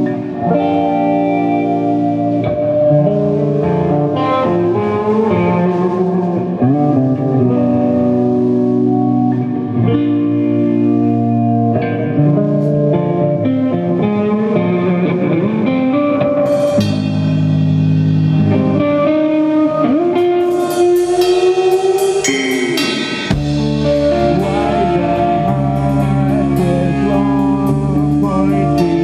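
A live rock band playing a post-hardcore song: ringing guitar notes at first, with cymbals and drums joining about halfway through and the heavy low end of the full band coming in suddenly about three-quarters of the way in.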